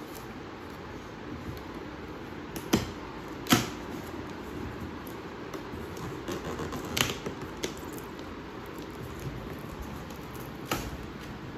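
Five or so sharp clicks and knocks over a steady low hiss, the loudest about three and a half seconds in: a monitor's box and packaging being handled and opened.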